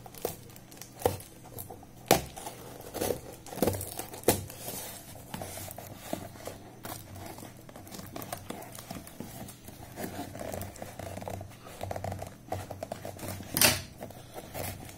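Scissors cutting open a taped cardboard parcel: irregular snips and clicks of the blades with crinkling and tearing of the packing tape and wrapping. A sharp snap near the end is the loudest sound.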